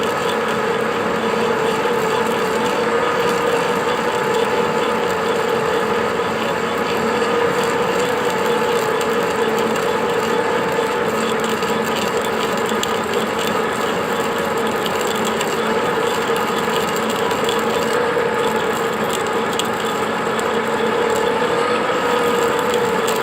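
Metal lathe running steadily while a drill slowly bores out a snapped timing-drive bolt from the end of a crankshaft: an even mechanical hum with a steady whining tone.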